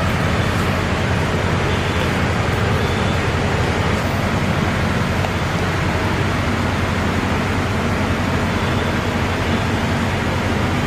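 Fire truck's diesel engine running steadily, a constant even noise with a low hum and no change throughout.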